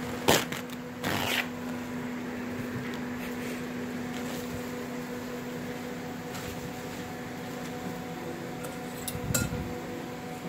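Steady hum from a kitchen appliance or fan, with a few sharp clicks and knocks from metal tongs and a glass bowl lined with paper towel being handled, two near the start and a duller knock near the end.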